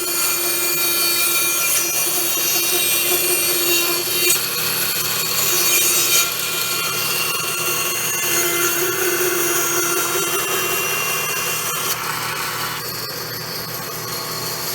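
Bandsaw running and cutting through a wooden blank, slicing off a piece 3/8 of an inch thick. About 13 seconds in the higher cutting noise drops away and the saw runs on more quietly.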